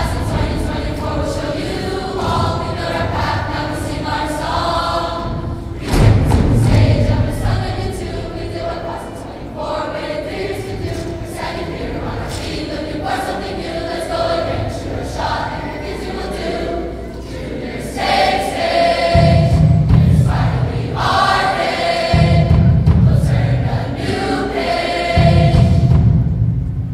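Large mixed choir of teenage voices singing together. In the last third, heavy low thumps come in three long stretches under the singing.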